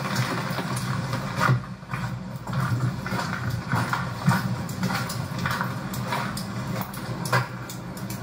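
Footsteps crunching on a gravel path at a walking pace, over a steady low hum.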